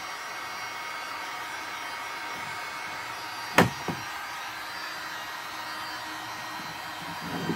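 Electric heat gun blowing steadily as it heats a flattened PVC pipe rib to soften it for bending to the canoe hull's curve. One sharp knock about halfway through, with a smaller one just after.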